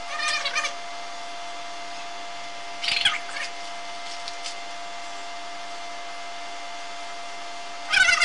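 Hands kneading a sticky lump of silicone sealant worked with starch, giving three short squeaky bursts: one at the start, one about three seconds in and one at the end, over a steady hum.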